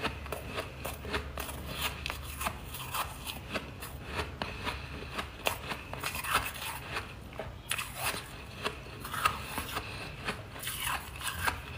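A person chewing hard, powdery chunks of freezer frost: a continuous run of irregular, sharp crunches between the teeth.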